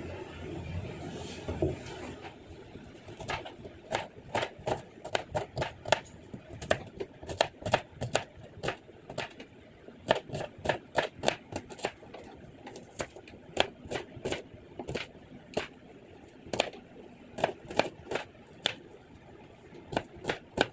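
Kitchen knife chopping onions on a cutting board: sharp taps in runs of about two to three a second, beginning about three seconds in, with a couple of short pauses.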